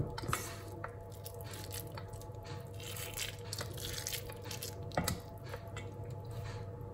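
Hands squeezing and scooping a wet grated-carrot fritter mixture in a metal bowl, making soft squishing and rustling, with a faint knock at the start and another about five seconds in.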